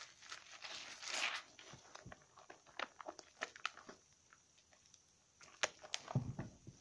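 Wet squishing of a slightly soaked bar of soap and a sponge squeezed by hand in thick lather, with a scatter of short crackles and pops from the foam and a few sharper clicks near the end.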